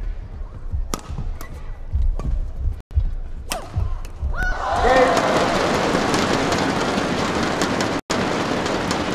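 Badminton rally: several sharp racket strikes on the shuttlecock with low thuds from the court, then about four and a half seconds in a crowd breaks into loud sustained cheering and shouting as the game-point rally is won.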